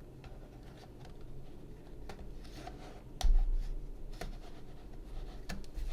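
Bottom cover of a Mac mini being pried loose around its edge: scattered small clicks and scrapes as its snap clips release, with a louder click and a low bump about three seconds in.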